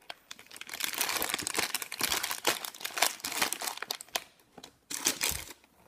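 Brown packing paper and plastic food packaging crinkling and rustling as they are handled: a dense run of crackles for about four seconds, then a brief lull and a couple of short rustles near the end.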